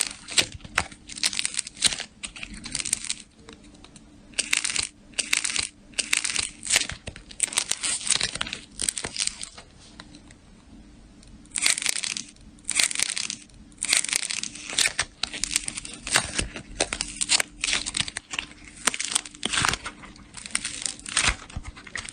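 Slime being squeezed and pressed by hand, giving rapid irregular crackles and sticky pops, with a pause of a second or two around the middle.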